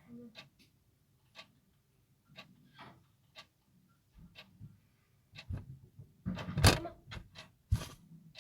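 Clock ticking in steady, regular clicks. From about five and a half seconds in, louder knocks and rubbing noises sound over it, the loudest a little before the end.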